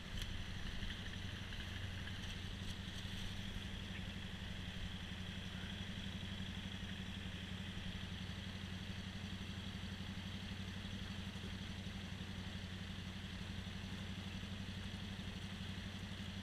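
The jon boat's outboard motor idling steadily, an even low hum with a fast regular pulse.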